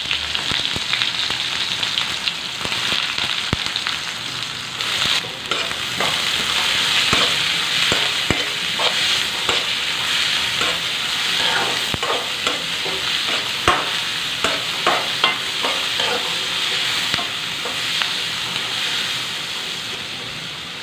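Sliced red onions sizzling steadily in hot oil in a wok, being stir-fried. The stirring spoon scrapes and clacks against the pan, more often from about five seconds in.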